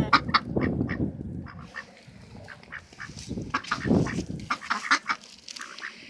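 Poultry calling in many short, repeated notes, with bursts of low rumble in the first second and again around four seconds in.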